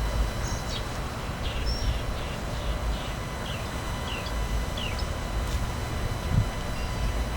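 A bird chirping repeatedly, short falling notes about two a second that die away after about five seconds, over a steady low rumble.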